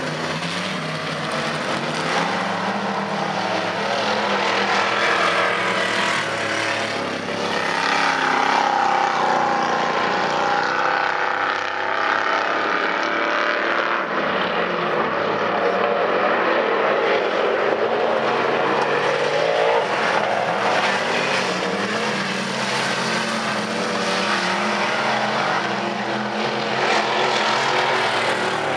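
Modified dirt-track race cars racing on a dirt oval, their engines running hard with the pitch rising and falling as they come off and into the turns.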